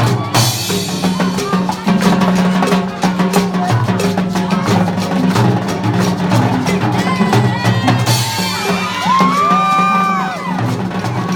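Live jazz band music with a steady drum kit beat and walking bass line; a melody line swells and is held near the end.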